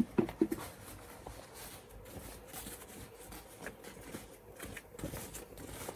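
Faint rustling and handling of a cotton shirt sleeve being lifted and turned over on a table. A short sharp click at the very start is the loudest sound, followed by a few light knocks.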